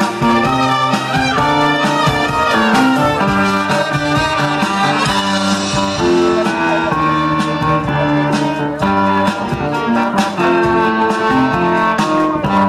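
Instrumental background music: held melody notes over a beat with drum hits.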